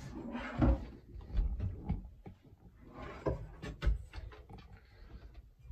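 A wooden fold-down table being lifted up and its folding legs set in place, giving a series of short wooden knocks and clunks with some handling rustle.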